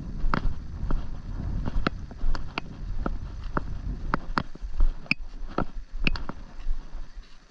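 Irregular sharp clicks and ticks from handling a spinning rod and reel, a couple of them with a brief metallic ring about five and six seconds in, over low rumbling wind on the microphone.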